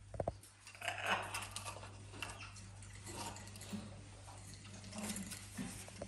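A raccoon moving about on a stone windowsill: a couple of soft thumps at the start, then scattered light clicks, taps and rustling as it paws at the blanket and toys, over a steady low hum.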